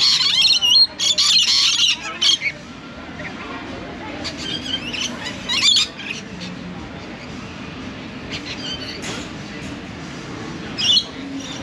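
A flock of lorikeets screeching: harsh, rapid squawks, densest in the first two seconds or so, then coming in scattered short bursts.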